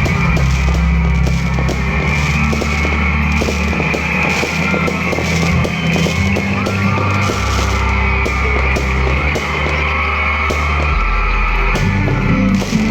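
Loud background music with a steady beat and deep held bass notes.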